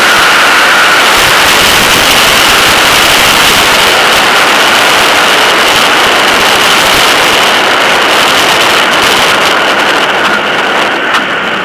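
Pitts S-1S biplane's engine and propeller at low power during the landing rollout, heard under heavy wind rush on a camera mounted on the plane, with a steady high tone running through. Near the end the rush eases and sharp ticks come through.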